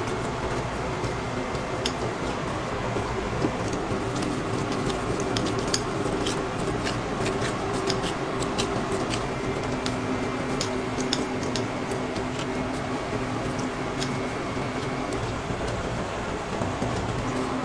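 Steady fan-like whir with a low hum, and scattered light clicks and taps throughout.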